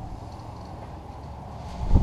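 Steady low hum of background machinery or room noise. A dull bump swells up near the end.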